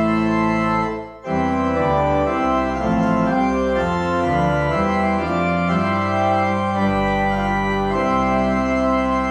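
Church organ playing slow sustained chords over low pedal bass notes, with a brief break between phrases about a second in.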